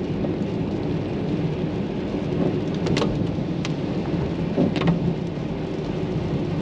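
Steady car-cabin noise while driving slowly: a low engine and road hum with rain on the car, and a few short clicks about three and five seconds in.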